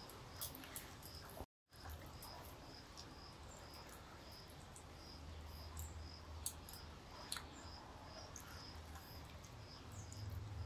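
Quiet outdoor ambience: an insect chirping in a steady rhythm, a short high chirp about twice a second, with scattered soft clicks from people eating by hand off banana leaves. The sound cuts out completely for a moment about a second and a half in.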